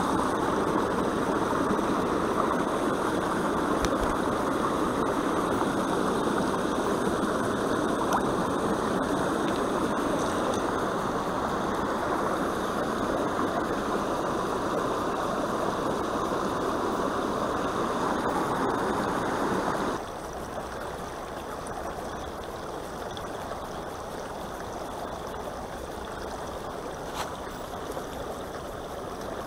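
Water rushing and trickling over rocks at the bank, a steady noise that drops suddenly to a quieter level about two-thirds of the way through.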